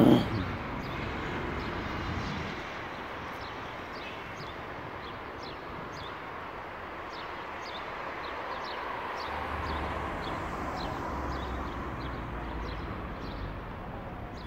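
Outdoor city ambience: a steady wash of street traffic with birds chirping over it in many short, high notes, and a low vehicle rumble that swells past the middle and fades. A brief loud thump right at the start is the loudest sound.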